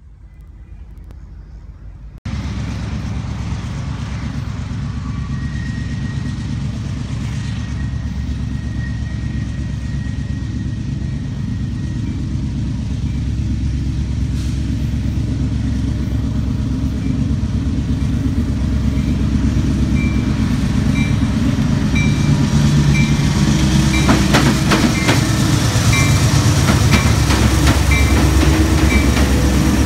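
Freight train led by Union Pacific and CSX diesel locomotives approaching and passing close by: a steady low engine rumble that grows louder. In the last third there is a short high note repeated under once a second, and a brief run of sharp clicks.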